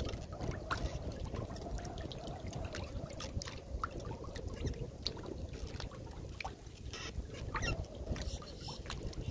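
Water lapping and trickling at a wooden dock, with many small scattered splashes and clicks over a steady low rumble.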